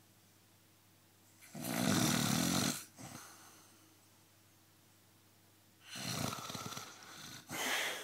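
A sleeping person snoring: a loud, rattling snore about a second and a half in that lasts just over a second, then another starting about six seconds in that breaks off briefly and resumes just before the end.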